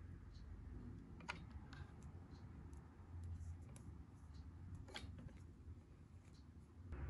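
Faint small clicks and ticks of fingers kneading and pinching a lump of soft candy dough, with two sharper clicks about a second in and about five seconds in, over a low steady hum.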